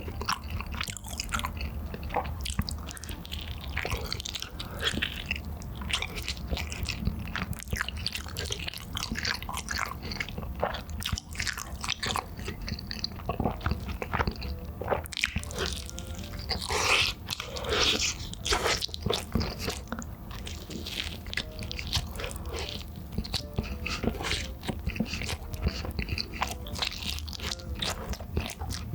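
Close-miked biting and chewing of Chicago-style cheese meatball pizza: many small crunchy bites and wet chewing, with a louder burst of crunching a little past halfway.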